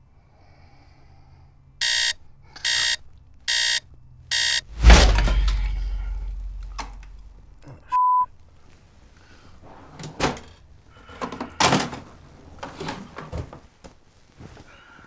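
Alarm clock buzzing in four short bursts, then a heavy thud with a low rumble that dies away over about two seconds. A single short steady beep follows a few seconds later, then a few soft knocks and rustles.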